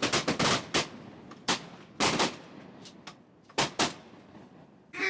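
Volley of shotgun blasts from several duck hunters, about nine shots in quick runs, some only a fraction of a second apart.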